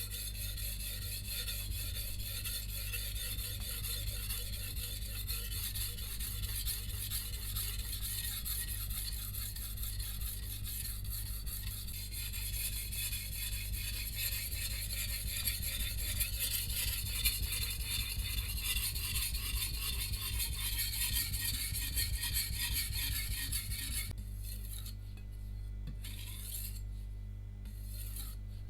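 Shun VG10 Chinese cleaver's steel edge being stroked back and forth on a wet 1000-grit Imanishi Arashiyama whetstone: continuous gritty scraping. About 24 seconds in, the steady strokes stop and a few shorter, separate strokes follow.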